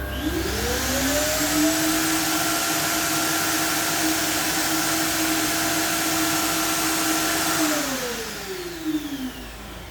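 Shop vacuum switching on automatically with the orbital sander plugged into it: the motor winds up over about a second and a half and runs steadily with a loud rushing hiss. It is switched off near the end and winds down over about two seconds.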